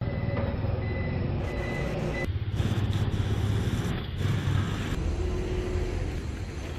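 Steady low rumble of road traffic and motor vehicles. In the first two seconds a high electronic beep repeats a few times, and the background shifts abruptly about two, four and five seconds in.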